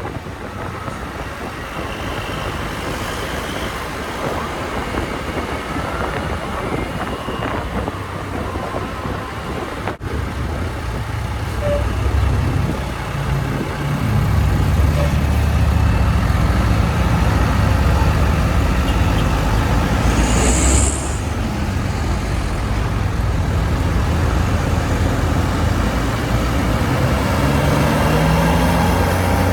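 Road traffic noise, then the low, steady running of a large bus's diesel engine, louder from about a third of the way through. About two-thirds in comes a short hiss of air.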